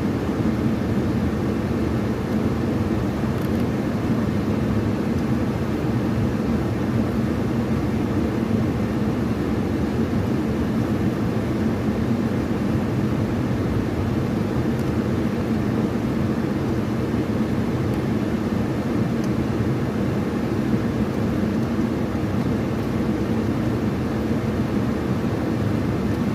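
Steady low drone, like a vehicle running, with an even hum and no distinct events.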